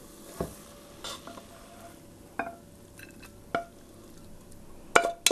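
Wooden spoon stirring stir-fried zucchini noodles and vegetables in a frying pan, with a few separate knocks against the pan. Near the end a quick run of taps and scrapes comes as the pan is tipped out into a glass bowl.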